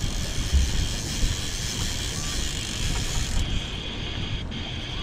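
Boat's outboard motor running under way, a steady low rumble mixed with a hiss of wind and water on the microphone.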